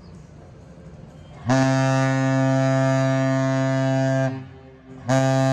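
Great Lakes freighter Arthur M. Anderson's horn sounding a salute: one long, deep blast of nearly three seconds, then a short blast starting near the end.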